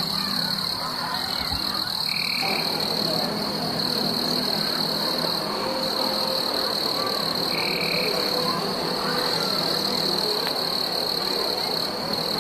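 Night chorus of calling frogs and insects: a dense steady croaking under a constant high-pitched trill, with a short higher call repeating about every five or six seconds.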